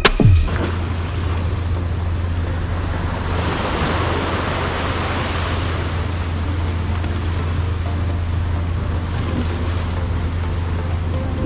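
Waves washing against a rock ledge, with wind rumbling on the microphone; the wash swells for a couple of seconds about four seconds in.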